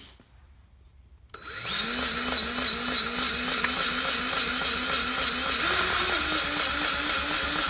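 DEWALT 20V Max cordless grease gun (DCGG571) starting about a second and a half in and running steadily with a regular pulse about three times a second. Its pitch steps up slightly about six seconds in. The gun has just been bled of air and is priming, pushing grease out of the hose end.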